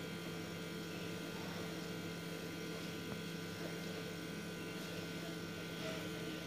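Steady low hum with faint hiss, an even background drone with no distinct events.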